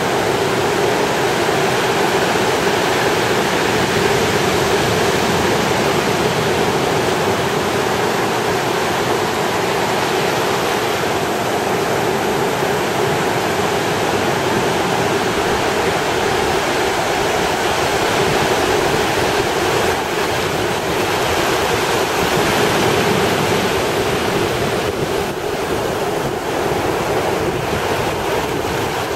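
Ocean surf breaking on the shore: a steady, loud wash of noise that swells and eases slightly as the waves come in.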